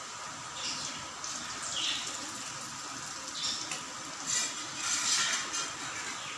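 Gram-flour and grated bottle-gourd kofta batter deep-frying in hot oil in a steel kadhai. The oil sizzles steadily, with irregular bursts of crackling that grow livelier about four to five seconds in.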